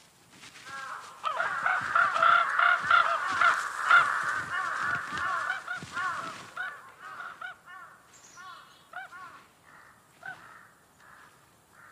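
A flock of crows cawing, many calls overlapping through the first half, then thinning to scattered single caws.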